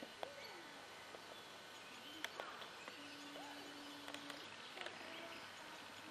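Faint outdoor ambience with a few scattered clicks and short chirps. A steady low tone is held for about a second and a half in the middle.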